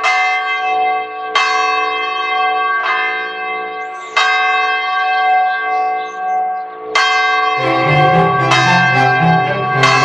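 Church bell ringing, struck about every second and a half, each stroke followed by a long ringing hum. About eight seconds in, a deeper tone comes in and the strokes come quicker and overlap.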